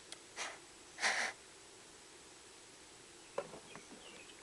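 A person's two short sniffs or breath puffs through the nose, the second louder, followed a couple of seconds later by a few faint small clicks of handling.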